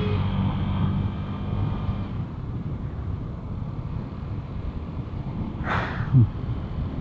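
Traffic and engine noise heard while riding a scooter, with a steady engine hum for the first two seconds. A short hiss comes about six seconds in.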